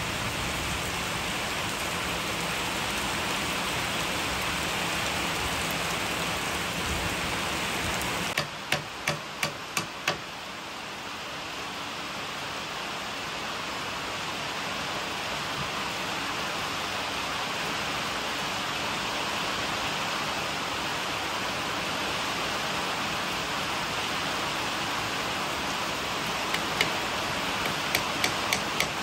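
Steady rain hiss. About a third of the way in come five sharp knocks in quick succession. Near the end a run of regular hammer blows begins, about two to three a second.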